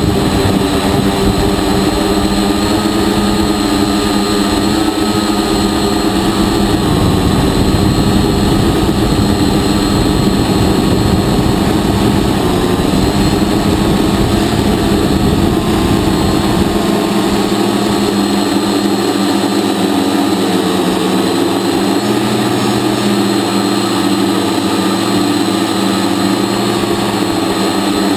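Hexacopter's electric motors and propellers whirring in flight, heard from its onboard camera: a steady multi-tone whine that wavers slightly in pitch. A low rumble under it drops away about two-thirds of the way through.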